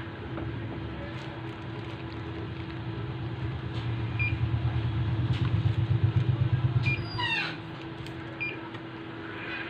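Three short high beeps from a digital multimeter as its test leads touch points on a TV main board, over a steady hum. A low rumbling hum swells through the first part and cuts off about three-quarters through.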